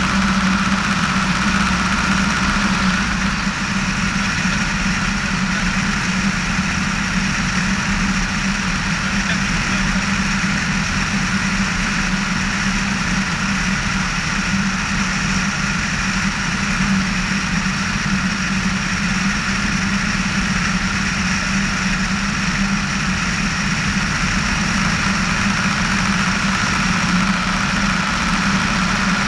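Piper PA-18-150 Super Cub's four-cylinder Lycoming engine and propeller droning steadily in flight, with an even low hum and no change in power.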